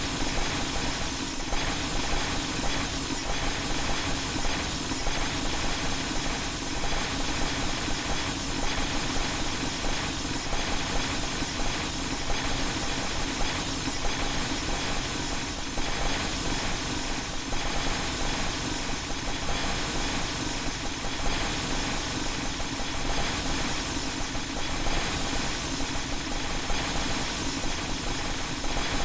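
A glass-shattering sound effect stacked on itself many times over, the copies so dense that they merge into a steady wash of noise with faint crackle running through it.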